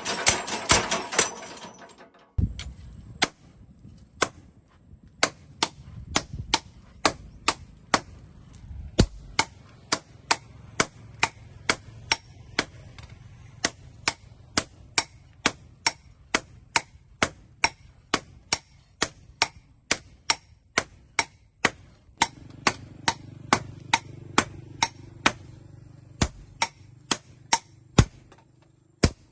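Hand hammer striking steel on an anvil in a steady rhythm of about two blows a second, each blow ringing sharply. A dense mechanical noise fades out about two seconds in, before the hammering starts.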